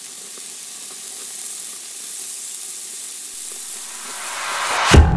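Meat sizzling on a hot grill, a steady high hiss that slowly grows louder and swells just before the end. A loud hit then lands as distorted electric-guitar music comes in.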